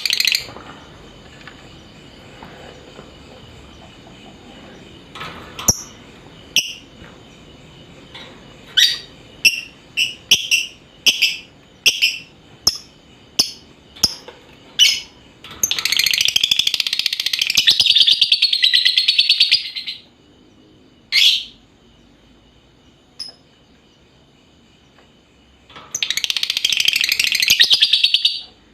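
Lovebird calling. First comes a run of sharp single chirps, each about half a second to a second apart. Then come two long rapid chattering trills of several seconds each, the prolonged chatter called ngekek: one just past halfway, one near the end.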